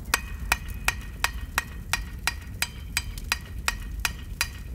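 Hammer striking an anvil in a steady rhythm, about three blows a second, each blow ringing.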